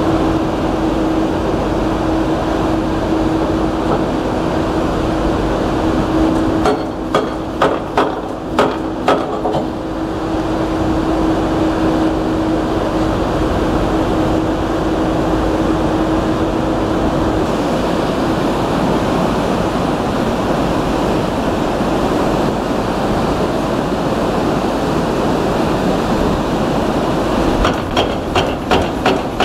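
Excavator-mounted hydraulic breaker hammering the concrete spillway in two bursts of about three blows a second, one about seven seconds in and another near the end. Between them is the steady rush of river water pouring through the broken spillway, with a steady hum that fades a little past halfway.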